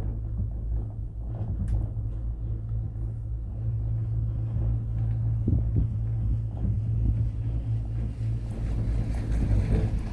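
Cable car gondola running along its cable: a steady low hum and rumble with scattered light clicks and knocks, growing a little noisier near the end.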